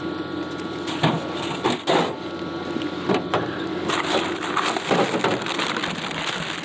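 Clear plastic bag of frozen bread crinkling and rustling in the hand as it is taken out of a vending machine's pickup compartment, with a string of sharp knocks and clatters, over a steady hum.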